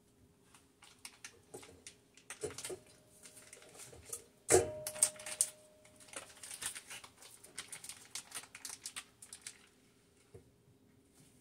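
Foil wrapper of a block of Philadelphia cream cheese crinkling as it is opened, a run of rapid crackly clicks and rustles. One sharp knock with a short ring comes about four and a half seconds in.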